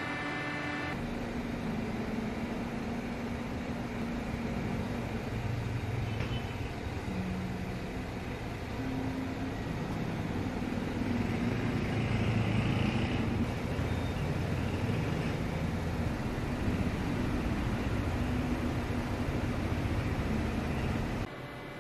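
Steady low rumbling background noise with a faint hum in it, swelling a little louder about halfway through.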